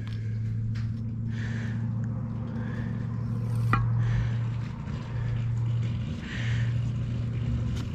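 Steady low hum of a running machine, with a single sharp click about three and a half seconds in.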